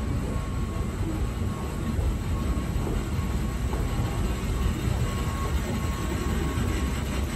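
Escalator running while being ridden: a steady low mechanical rumble from the moving steps and drive, with a faint whine that comes and goes.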